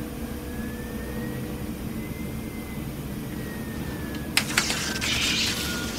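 Sound effects of a damaged space shuttle's cabin: a steady low rumble and hum, with a faint electronic tone that slowly rises and falls. A few sharp clicks come about four seconds in, then a short burst of crackling hiss near the end.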